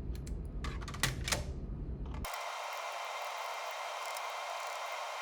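Small clicks and taps from a screwdriver working the screws of a plastic multimeter case, then, a little over two seconds in, a steady hiss that cuts in suddenly.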